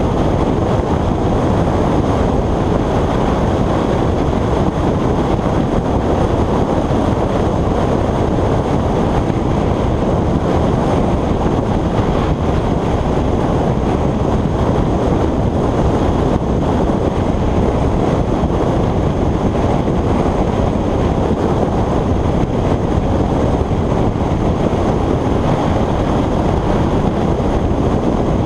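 Steady, loud wind rush on the microphone of a motorcycle-mounted GoPro at motorway speed, with the bike's road noise underneath.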